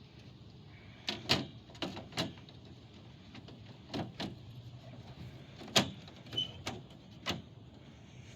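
Handling noise: a string of sharp knocks and clunks at irregular intervals, some in close pairs, as the portable air conditioner's opened casing is handled.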